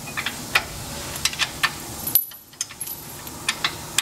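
Irregular sharp metallic clinks and taps of bolts and a steel mounting bracket being handled and fitted by hand against a truck frame.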